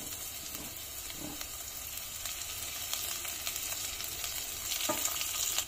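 Chopped garlic and green chilli sizzling in hot mustard oil in a steel kadhai while being stirred with a silicone spatula; the sizzle grows a little louder near the end.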